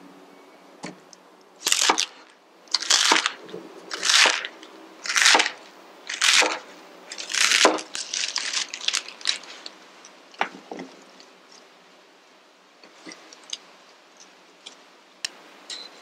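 Chef's knife slicing through crisp romaine lettuce on a wooden cutting board: six crunchy cuts about a second apart, each with a crackling tear. After them come softer rustles and light taps as the cut lettuce is gathered by hand.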